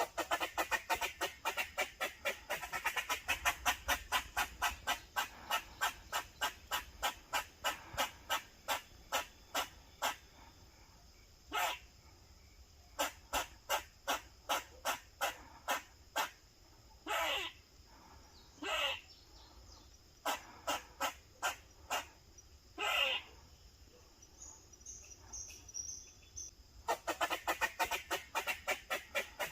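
Grey squirrel barking in alarm, a protective call. It gives a fast run of short barks, about three or four a second, for the first ten seconds, then slower scattered barks mixed with a few longer, drawn-out calls.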